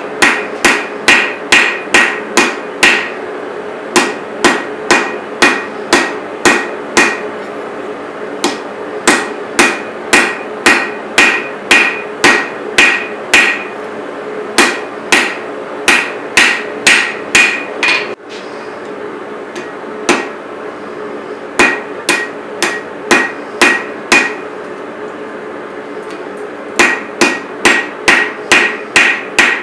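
Hand hammer striking a steel knife blank on an anvil while forging, in steady runs of about two to three blows a second with brief pauses, many blows ringing. A steady hum runs underneath.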